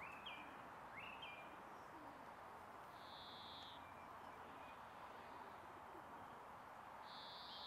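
Faint outdoor birdsong: pigeons cooing softly, with a few short high chirps from other birds.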